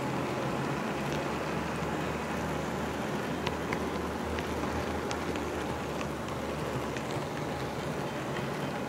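HO-scale model train car rolling along the track, heard through the car body: a steady rumble with a low hum and scattered light clicks.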